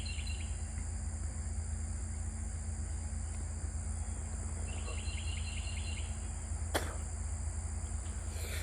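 Steady outdoor background of insects and a low hum. A short, rapid run of chirps comes about five seconds in, and a single sharp click comes near seven seconds.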